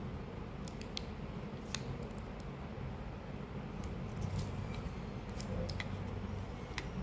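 Packaging being handled and unwrapped by hand: scattered small clicks and crinkles of plastic and cardboard over a steady low background hum.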